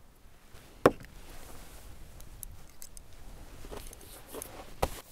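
Small clicks and taps of chopsticks and a dish while eating sushi: one sharp tap about a second in and another near the end, with faint scattered clicks and rustling between.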